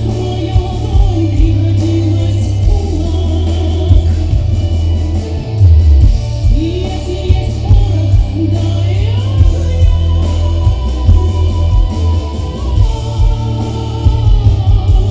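A woman singing a song into a microphone over loud amplified accompaniment with a strong bass line, heard through a concert PA system.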